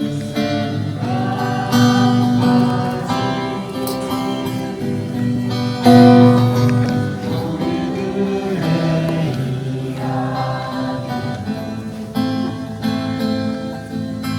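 Acoustic guitar strummed while people sing a song along with it.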